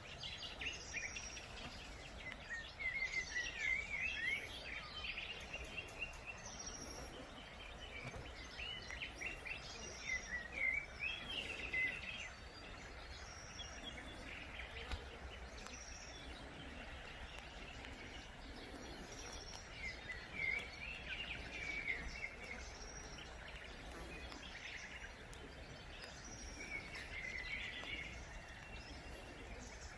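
Small songbirds singing in short twittering phrases of quick rising and falling notes, a few seconds apart, over a steady faint outdoor background hiss.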